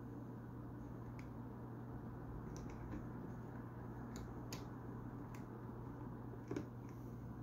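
Faint, irregular plastic clicks, about seven in all, from a Calpak hard-shell suitcase's TSA combination lock as fingers work its dials and button. A low steady hum runs underneath.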